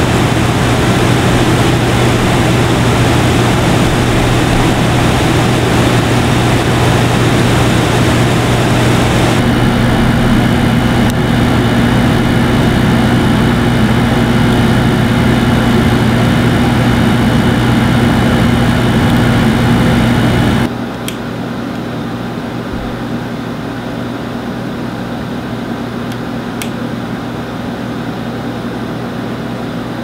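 Shinco 8,000 BTU portable air conditioner running on high with its compressor on: a steady rush of blown air over a low hum. About nine seconds in a second, higher hum joins, and about twenty-one seconds in the sound abruptly drops to a quieter, steady run.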